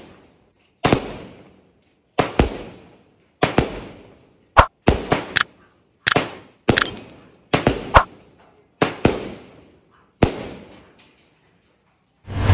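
Small-calibre 16-shot fireworks cake firing: sharp bangs about once a second, many of them quick double pops, with a brief high whistle about seven seconds in. The shots stop about ten seconds in, and near the end a sound effect with a low boom and held tones begins.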